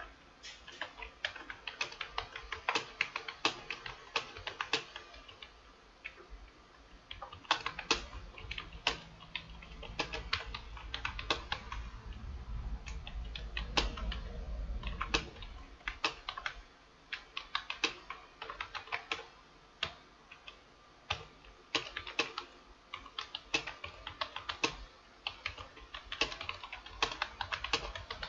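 Computer keyboard typing: quick runs of keystrokes with short pauses between words and phrases. A low rumble rises and fades in the middle.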